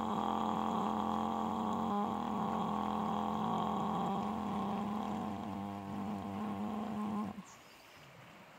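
A low, steady droning tone rich in overtones, held with a slight waver, that stops abruptly about seven seconds in, leaving only a faint hiss.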